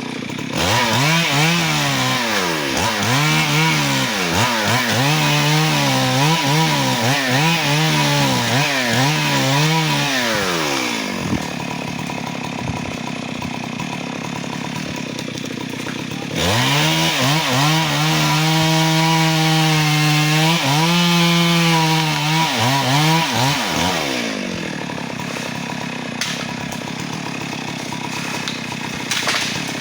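Chainsaw cutting teak wood in two bursts at high revs. The first lasts about ten seconds, the engine pitch rising and falling again and again. The second, about seven seconds long, is held more steadily, and the saw drops to idle between the bursts and after them.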